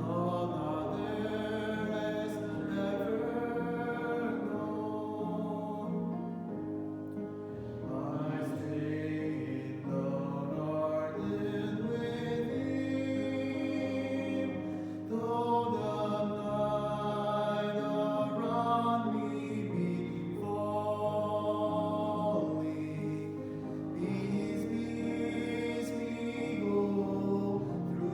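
Slow church music with singing: long held notes that move from one to the next every second or two.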